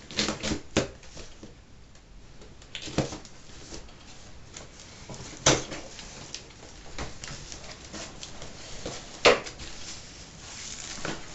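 Cardboard shipping box being opened by hand: packing tape slit with a knife, then the flaps pulled and folded back, giving a few sharp cardboard snaps and rustles, the loudest about halfway through and again near the end.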